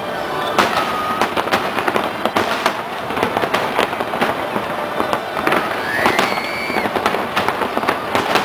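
Fireworks display: a rapid, continuous run of bangs and crackling bursts, with a high whistle rising about six seconds in.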